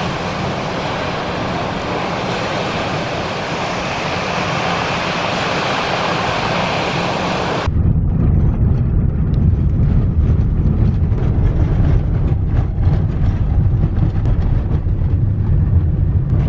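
Strong wind and surf noise on the camera microphone. About eight seconds in, it cuts suddenly to a heavy low rumble of a car driving over a rough gravel track, with wind buffeting the microphone.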